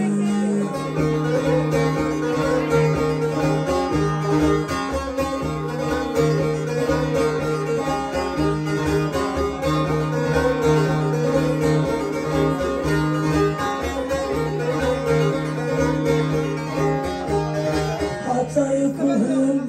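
Instrumental interlude of Alevi semah music: a bağlama (long-necked plucked lute) playing a quick repeating melody over a steady low drone, with no singing.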